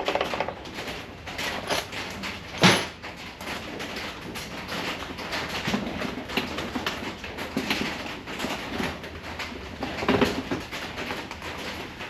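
A hand ratchet on a 5/16 socket clicks in short runs as it loosens the rear axle adjuster bolts on a Harley-Davidson Dyna Super Glide swing arm, with one sharp metal clack about two and a half seconds in. Rain hisses steadily underneath.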